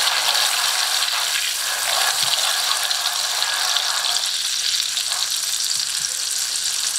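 Butter and brown sugar sizzling and crackling steadily as they melt in a nonstick frying pan, stirred now and then with a silicone spatula.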